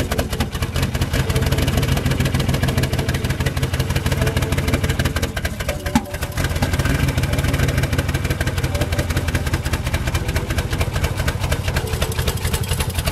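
Ford 4.6-litre dual-overhead-cam V8 idling just above 500 RPM on new spark plugs, a steady run of rapid exhaust pulses. There is no knock, and the exhaust is the only noise the motor makes. A short click and dip in loudness come about six seconds in.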